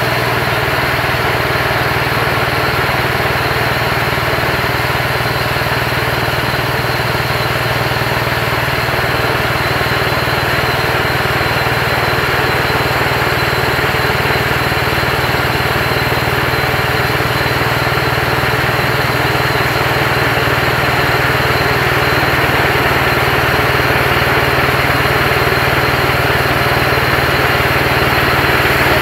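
Portable bandsaw mill's engine running steadily while its band blade cuts along a log, the sound growing slightly louder as the saw head advances.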